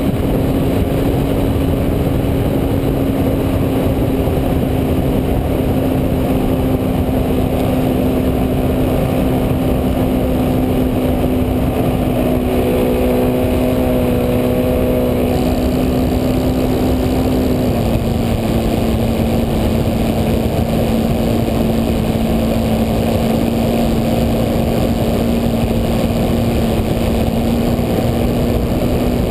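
Onboard sound of a Spacewalker model plane in flight: the motor and propeller drone at one steady pitch under a loud rush of wind over the camera. The pitch drops slightly about 18 seconds in.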